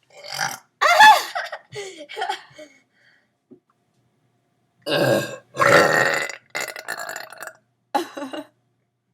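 Repeated burps, one after another, in two runs with a quiet gap of about two seconds between them.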